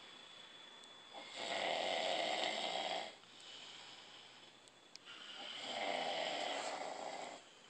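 Sleeping people snoring loudly: two long snores, one starting about a second in and one near the end, with quieter breathing between them.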